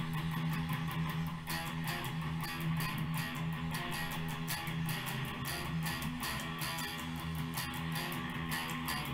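Electric guitar played through an amplifier, picked quickly and continuously, with a low note ringing steadily underneath.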